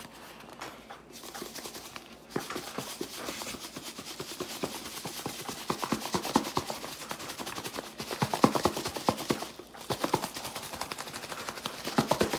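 Chicken breast chunks being shaken hard in a lidded plastic container of pink strawberry coating, knocking and rattling against the walls in fast, uneven bursts. The shaking pauses briefly about three-quarters of the way through, then starts again.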